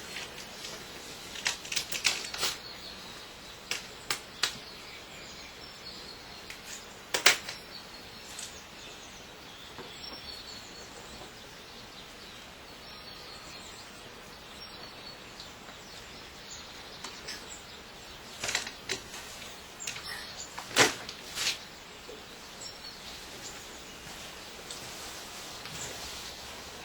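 Steady outdoor background noise broken by scattered sharp clicks and knocks. The loudest come about seven seconds in and around twenty-one seconds in.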